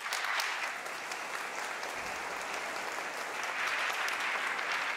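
A large audience applauding, a steady dense clapping that starts all at once and keeps up.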